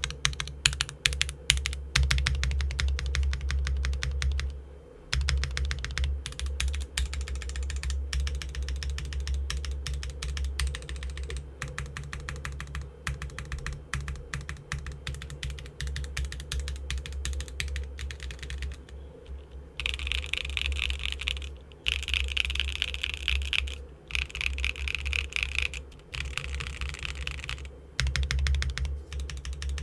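Fast typing on a Neo65 mechanical keyboard with factory-lubed Gateron Cream Soda switches, a carbon fiber plate, PBT keycaps and no foam: a dense run of keystrokes, broken by short pauses about five seconds in and again just before the twenty-second mark.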